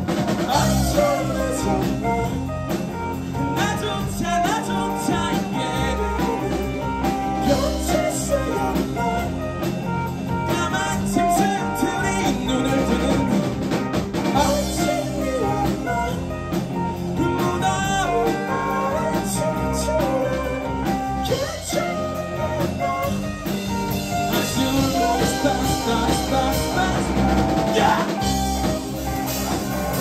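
Live rock band playing: electric guitars over bass guitar and a drum kit, loud and continuous.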